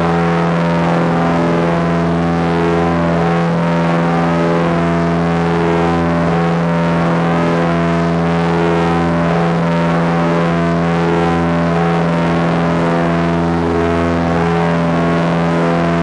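Small plane's engine and propeller heard from inside the cabin in flight: a loud, steady drone with a strong low hum and many overtones, unchanging throughout.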